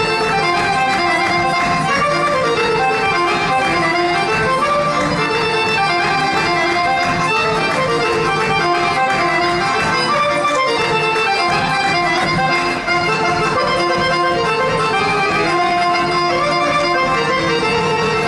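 Live traditional Serbian folk music for a kolo dance, played by an instrumental ensemble: a busy melody of many quick notes at a steady level.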